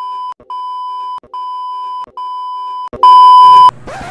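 Electronic bleep tone at a steady pitch, repeating in beeps of about two-thirds of a second, a little faster than one a second; the last beep, about three seconds in, is much louder. A short rushing noise follows as it cuts off.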